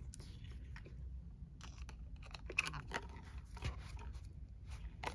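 Faint scattered clicks, rustles and light scrapes of small craft tools and paper being handled while an eyelet is fitted into a paper slide.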